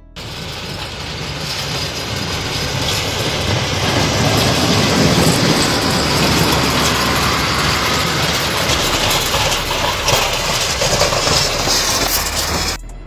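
Heavy snow-clearing truck on chained tyres driving through deep snow: engine running under a steady rushing noise that swells over the first few seconds as it approaches, then holds, and cuts off just before the end.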